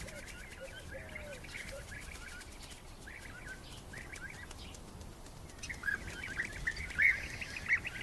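A flock of European bee-eaters calling, many short repeated chirping calls overlapping. The calling grows louder and busier about six seconds in.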